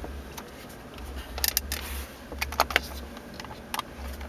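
Clicks and light knocks of the Lexus LS460's wood-trimmed centre console lid being opened and handled by hand, with a cluster of sharp clicks about a second and a half in and more around two and a half and near four seconds, over a low hum.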